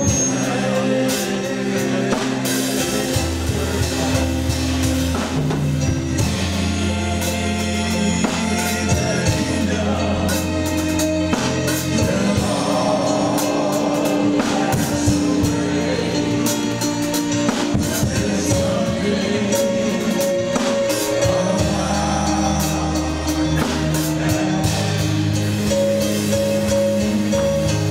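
Gospel-style worship song: singing over a drum kit, with low held bass notes that change every few seconds.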